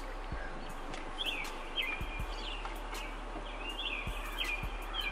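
Outdoor ambience: a songbird chirping in short repeated phrases over a steady background hiss, with a few light clicks.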